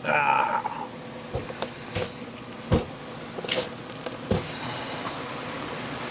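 Short squeak at the start, then a handful of sharp wooden knocks as sawn cedar boards are lifted off and set down, over the steady hum of a running machine.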